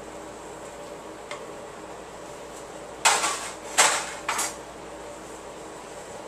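Kitchen utensils and a baking pan being set down on a countertop: a faint tap about a second in, then three sharp clatters in quick succession a little past the middle, over a faint steady background hum.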